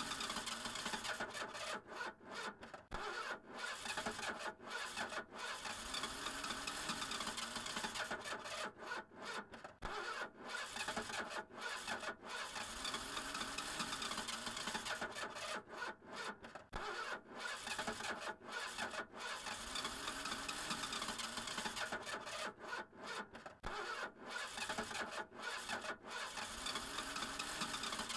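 Car engine being cranked over and over by its starter motor without catching. A rasping, churning sound swells and fades about every three to four seconds, the sign of an engine that won't start.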